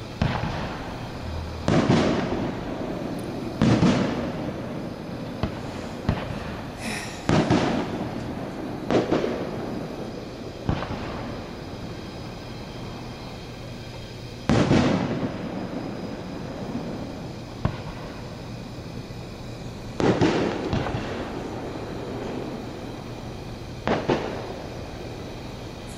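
1.3G consumer fireworks: aerial shells bursting one after another, about ten sharp bangs at uneven intervals, each trailing off in a rumbling tail, with a pause of a few seconds near the middle.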